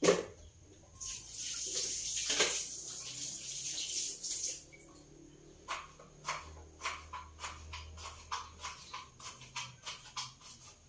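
A knock, then water running for a few seconds. Then a run of quick, irregular knife chops on a cutting board, two or three a second, as ginger is cut.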